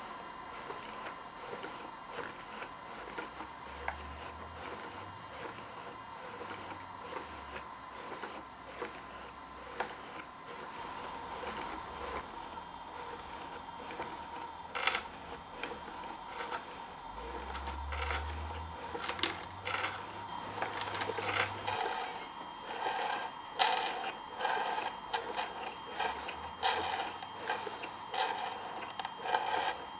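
Hand-cranked paper automaton's mechanism clicking and rattling as it is turned. The clicks grow sharper and more frequent about halfway through.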